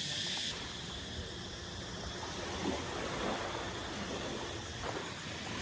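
Sea waves washing steadily onto a beach.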